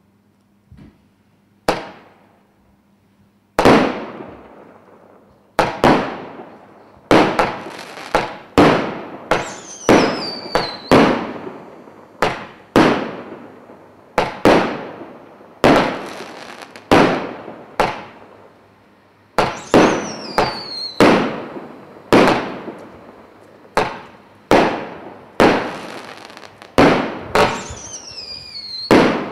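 Emperor Fireworks 'Zero Gravity' firework cake firing a rapid series of aerial shots, about thirty sharp bangs at roughly one to two a second, each ringing out briefly. After a couple of faint pops the firing gets going about three and a half seconds in, and a few of the shots trail a falling whistle.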